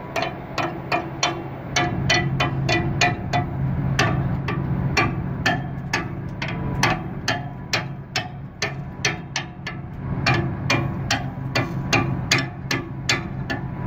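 The ferry's machinery hums steadily while it sits at the quay. Over the hum comes a rapid, uneven run of sharp knocks with a ringing tone, about two or three a second, from a source that cannot be named.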